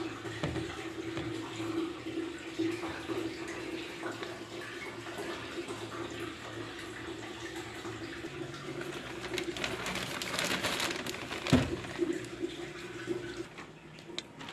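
Washing machine with soapy water churning and sloshing in its tub over a steady motor hum. The hum cuts off shortly before the end, and there is a single sharp knock late on.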